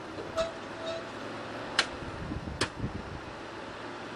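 A few sharp single clicks, most likely the starter solenoid, over a steady background hum, with the 305 Chevy V8 not cranking: the battery is too weak to turn it over.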